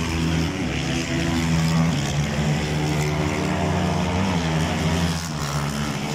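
Motorcycle engines running at high revs, their pitch rising and falling, with a falling note about four to five seconds in.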